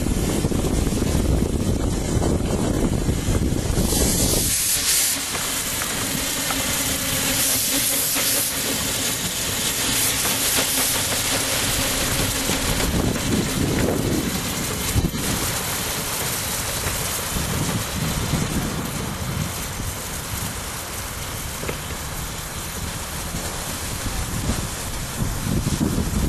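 Steam locomotive on a 15-inch gauge railway hissing steam, a strong high hiss that sets in abruptly about four seconds in and eases after about eight seconds, continuing more softly. A low rumble comes before the hiss, and a single sharp click sounds about midway.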